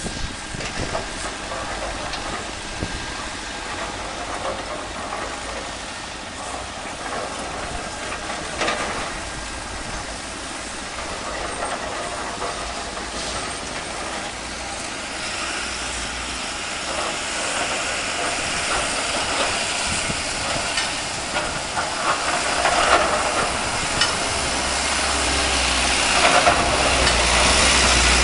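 Diesel engines of dump trucks and excavators running in a noisy, hissing din. It grows louder in the last few seconds as a deeper engine rumble comes in.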